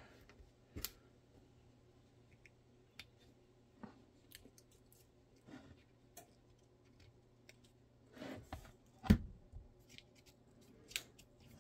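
Scattered small clicks and taps as hands handle a gun mold and press painter's tape down over it, with a brief rustle and one sharp knock about nine seconds in.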